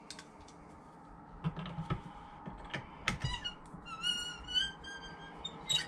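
A tight copper band being worked onto a wooden duck call barrel by hand: light clicks and taps, then a squeak about three seconds in that wavers on for under two seconds as the metal rubs on the wood.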